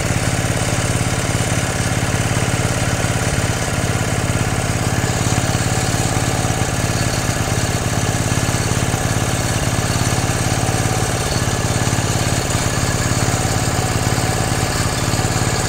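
6.5 hp single-cylinder diesel engine of a walk-behind power tiller idling steadily.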